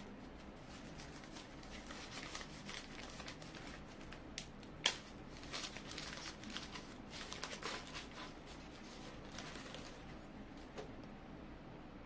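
Brown kraft packing paper crinkling and rustling as it is pulled out of a cardboard shipping box and unwrapped from a potted plant, with one sharp crackle about five seconds in. The rustling thins out near the end.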